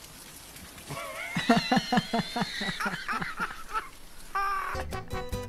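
A woman laughing hard in a rapid, high-pitched run of short ha-ha bursts that starts about a second in and fades by four seconds. Music starts near the end.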